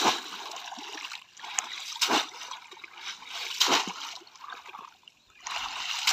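Water splashing as a bamboo polo fish trap is plunged repeatedly into shallow, muddy floodwater. There are four sharp splashes a second or two apart, with lighter sloshing between them.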